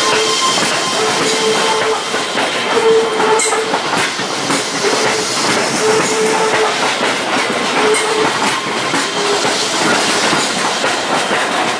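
Keihan 13000-series electric train rolling slowly along the platform, its wheels clattering over rail joints. Short squeals or whines come and go over the running noise.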